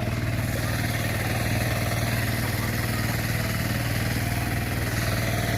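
Two-wheel hand tractor (kuliglig) engine running steadily with an even low throb as it plows the field.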